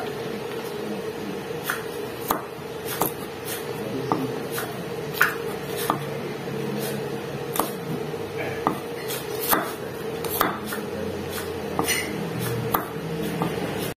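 Kitchen knife chopping garlic cloves and ginger on a wooden cutting board: slow, irregular knocks of the blade on the wood, about one or two a second, over a steady hum.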